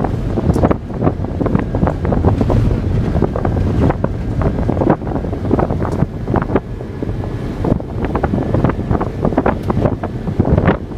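Car cabin noise while driving fast over a rough road: engine and tyre rumble, wind buffeting the phone's microphone, and frequent irregular knocks and rattles as the car jolts over bumps.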